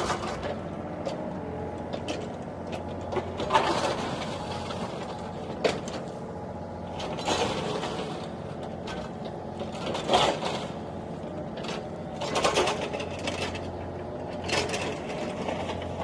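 Toy remote-control excavator running: a steady low hum with louder whirring surges about every two to three seconds.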